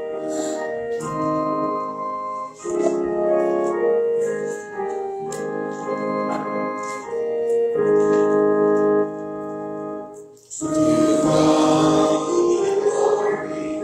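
Church organ playing the introduction to a recessional hymn in held chords that change about once a second. After a short break about ten and a half seconds in, singing of the hymn begins with the organ.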